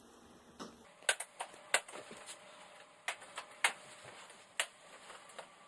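Sharp plastic clicks and snaps, a dozen or so at irregular intervals: the clips of an LG LED TV's plastic bezel being popped loose as the bezel is worked off the panel.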